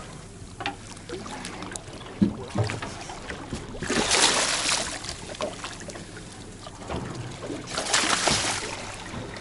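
A hooked red emperor splashing and thrashing at the surface against the boat's hull as it is grabbed and lifted out by hand. There are two bursts of splashing, about four seconds in and again near the end, over steady wind and sea noise.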